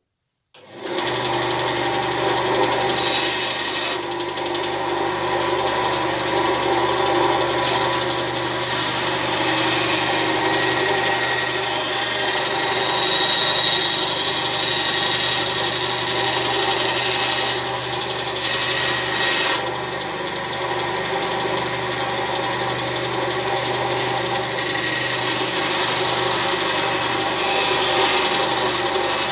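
My Project benchtop wood band saw running with a steady motor hum while its blade cuts a tight small circle in thin wood. The cutting noise swells and eases several times as the piece is fed and turned. The sound starts abruptly about half a second in.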